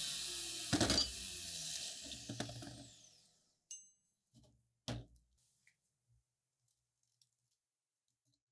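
Belt grinder's electric motor switched off and winding down, its hum falling in pitch and fading over about three seconds, with a sharp knock about a second in. A metal part is then set down on the workbench with a knock about five seconds in, followed by faint light taps.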